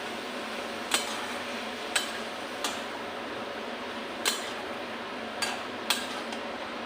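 A spatula stirring greens frying in a pan, knocking against the pan about six times at uneven intervals over a steady sizzle of hot oil.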